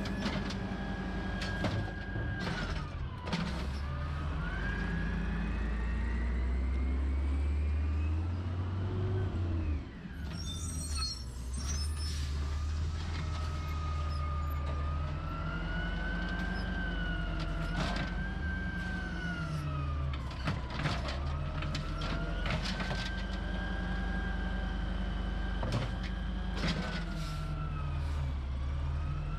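Electric scooter's motor whining, its pitch rising and falling as the speed changes, over steady wind and road rumble. A short hiss comes about ten seconds in, and a few knocks from bumps.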